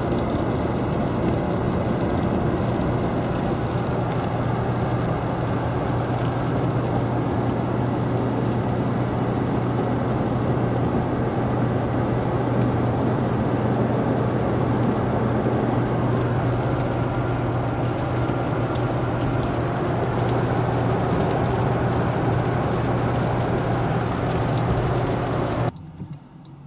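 Steady road and engine noise heard from inside a vehicle cabin at highway speed, with a constant low hum under it. It drops away suddenly about a second before the end.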